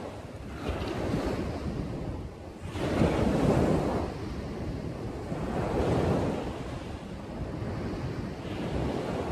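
Small waves breaking and washing up onto a sandy beach, swelling and fading, loudest about three seconds in and again about six seconds in. A low rumble of wind on the microphone runs underneath.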